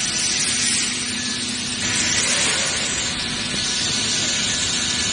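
Finework FW1325-A CNC wood router running and cutting into the board: a steady, loud hiss from the spindle and cutter with a faint steady hum beneath it.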